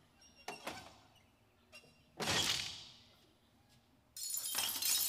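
Film sound effects of a car door being slammed and its window glass shattering. A knock about half a second in and a loud crash about two seconds in are followed near the end by a sudden burst of breaking, clinking glass.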